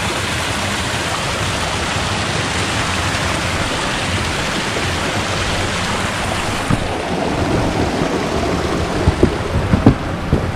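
Steady rushing of flowing stream water. About seven seconds in it turns rougher, with several short low thumps near the end.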